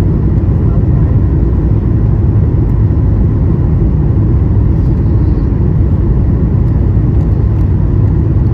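Steady, loud low rumble of a Boeing 737-900ER's cabin in motion: jet engine and airflow noise heard from a seat inside, with a faint steady whine on top.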